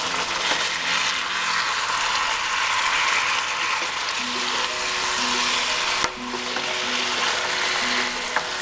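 Chicken sizzling as it is slow-fried in a thick green spinach masala in a pan, a steady hiss that drops out briefly about six seconds in. Soft background music with held notes plays underneath.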